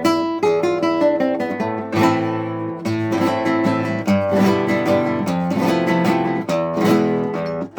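Acoustic guitar playing a Spanish-style piece: runs of plucked notes broken by strummed chords, with a strong chord struck right at the end.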